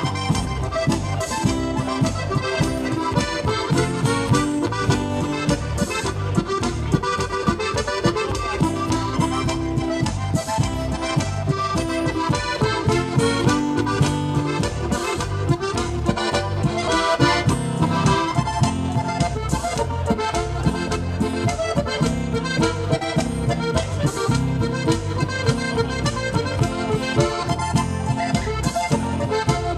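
Live Alpine folk music: two button accordions playing a lively tune in chords over a strummed acoustic guitar, with a steady, even beat.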